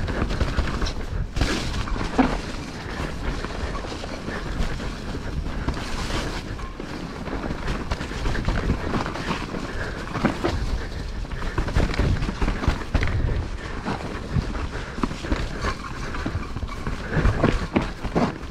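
Mountain bike riding along a muddy, snow-dusted forest trail: a steady rumble of tyres and bike with frequent short knocks and rattles over the bumps.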